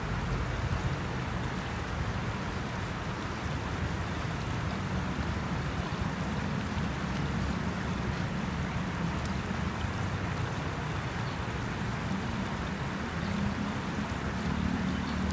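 Shallow river water running over rocks, a steady rushing hiss, with a faint low hum coming in near the end.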